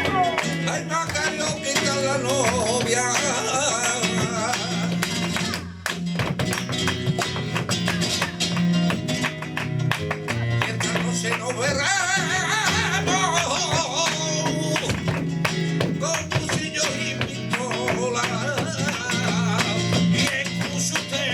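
Live flamenco tangos: a cante singer's wavering, ornamented line over flamenco guitar, with many sharp percussive strikes through it. The sound drops briefly about six seconds in.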